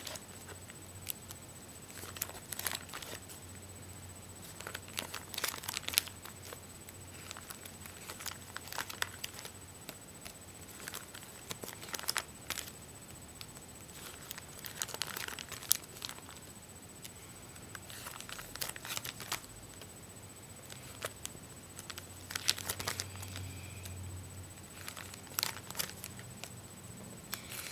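Plastic-sleeved pages of a card album being turned and handled: irregular crinkling rustles and soft clicks.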